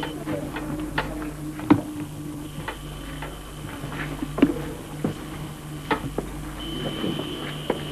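Steady low hum with a faint high whine that drops out and comes back. Scattered clicks and knocks run over it, the loudest about two seconds in.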